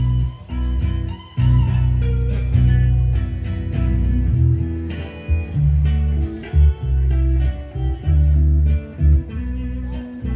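Electric guitar playing a bluesy lead line over deep bass notes that are held and broken off in a rhythm.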